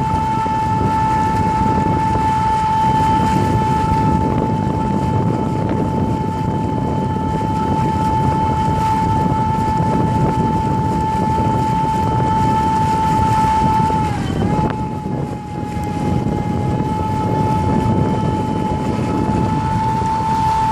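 Golden Motor 48 V 5 kW brushless electric outboard running at speed with a steady high whine, over the rush of churning wake and wind. About fourteen seconds in, the whine dips briefly in pitch and level, then comes back.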